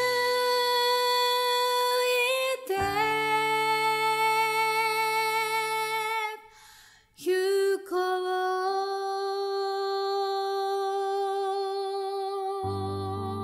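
Music: a female voice singing long held notes over soft sustained accompaniment. It pauses briefly about halfway through, then holds one long note while piano comes in near the end.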